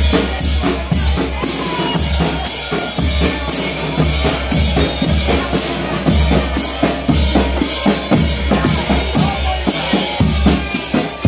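Street marching band's drum section playing a steady, fast beat: booming bass drum under snare and cymbal strokes, about three a second.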